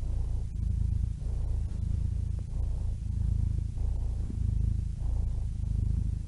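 Domestic cat purring, a low fluttering rumble that swells and eases with each breath, about five breath cycles in a row.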